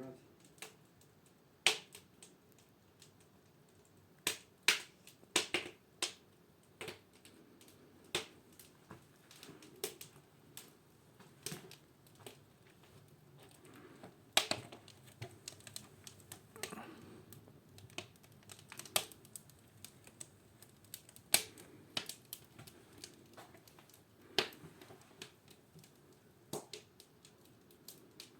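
Irregular sharp clicks and snaps, at most one or two a second and uneven in strength, over faint room noise.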